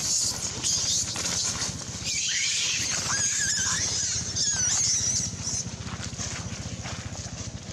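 Young long-tailed macaque screaming in distress while being roughed up by another monkey: a string of high, wavering shrieks from about two to five seconds in, over a steady low hum.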